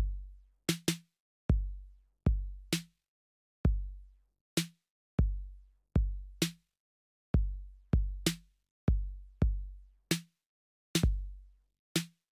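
TR-808 drum machine plugin playing a looped trap beat at 130 BPM: deep kicks with long low tails, and a sharp snare once a bar, about every two seconds. The kick placement shifts as the pattern is edited.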